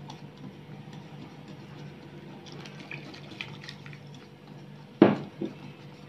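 Water being poured into a glass bowl of flour and egg for a frying batter, with faint trickling and small splashes over a steady low hum. A sharp knock comes about five seconds in, then a softer one.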